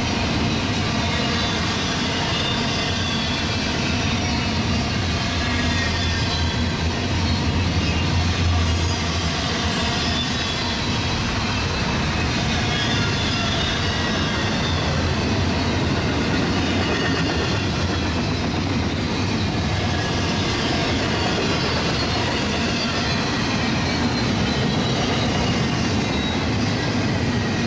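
Double-stack container well cars of a Union Pacific intermodal train rolling past close by: a steady, loud rumble and rattle of steel wheels on the rails, with faint thin high tones over it.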